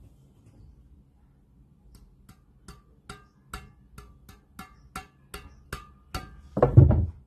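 Light taps on a badminton racket, each with a short ring, repeating about two to three times a second, then one louder thud near the end.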